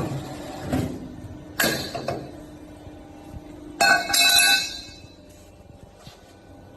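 Automatic steel pipe bending machine at work: a steady machine hum with sharp knocks about one and one and a half seconds in. Around four seconds in there is a loud, brief metallic squeal, after which the machine settles to a quieter hum.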